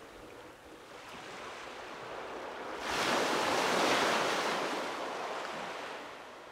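Sea wave breaking on a sandy beach: the wash swells, surges sharply about three seconds in, then fades away as the water runs back.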